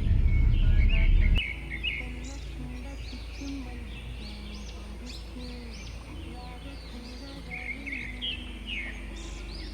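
Birds chirping, many short high calls repeating, over a low steady hum. A loud low-pitched passage in the first second or so cuts off abruptly.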